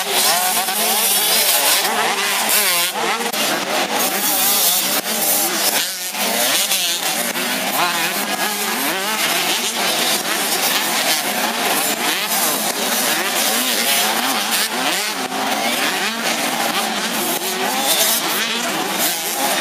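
Several 85 cc two-stroke motocross bikes revving hard together, their high engine notes rising and falling and overlapping without a break.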